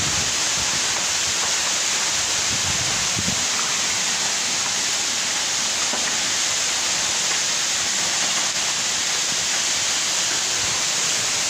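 Steady rushing hiss of a high-pressure water jet gushing from a burst underground water main that has torn up the asphalt, with its spray falling back like a heavy downpour.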